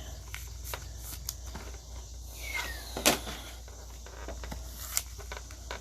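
Trading cards and plastic card holders being handled, giving a few scattered light clicks and taps, the sharpest about three seconds in, over a low steady hum.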